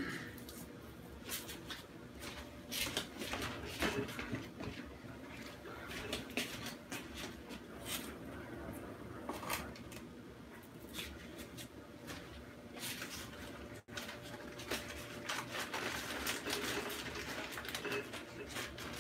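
Quiet kitchen handling: scattered light clicks and taps of a plate and food being handled, over faint room noise.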